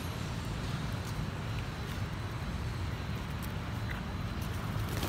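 Steady low rumble of city traffic, with a few faint scattered taps and clicks on the paved path.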